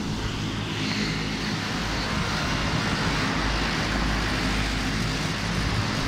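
Outdoor air-conditioning condenser units running: a steady whoosh of the condenser fans over a low, steady hum.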